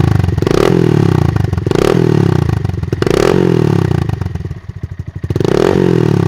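Honda Monkey 125's single-cylinder four-stroke engine revved in four quick throttle blips, each rising sharply and falling back toward idle, with a longer pause before the last one.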